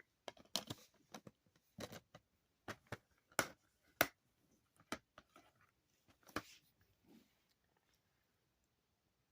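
Faint handling of DVD cases and their packaging: a string of short plastic clicks and rustles, with two sharper snaps about three and a half and four seconds in.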